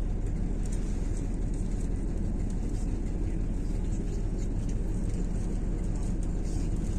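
Steady low rumble of a moving bus's engine and road noise, heard from inside the bus.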